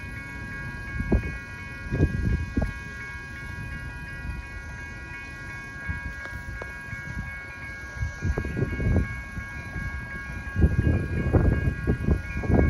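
Railroad grade-crossing warning bells ringing steadily, several tones at once. Irregular low rumbling swells up about ten seconds in and is louder than the bells.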